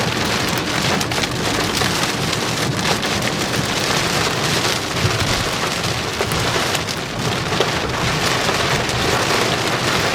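Heavy rain beating on the roof and windshield of a moving vehicle, heard from inside the cabin: a dense, steady patter of drops.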